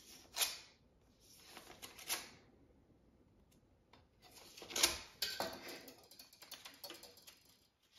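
A knife blade slitting open a paper envelope in short scraping strokes, then paper rustling and crinkling from about five seconds in as the contents are pulled out.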